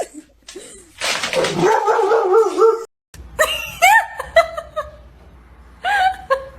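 A dog vocalizing: a wavering whine, then after a short gap a run of short rising yips, with one more near the end.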